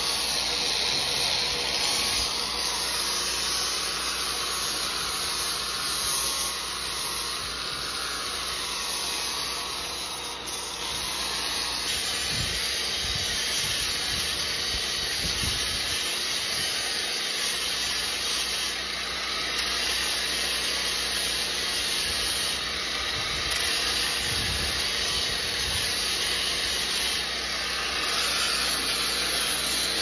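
Corded electric angle grinder with a sanding disc running steadily against the steel slider rail of a baler's plunger, its load shifting now and then as it is worked along the rail. It is buffing down a worn hump in the rail, which the owner takes for the cause of the sticking plunger.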